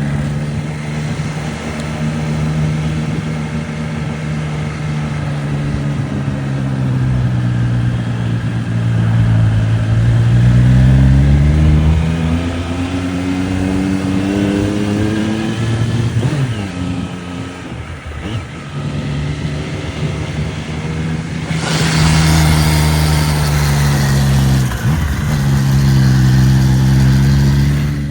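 Triumph Street Triple RS's 765 cc three-cylinder engine running, its note falling and rising several times as the revs change. A short burst of hissing noise rises over the engine about three-quarters of the way through.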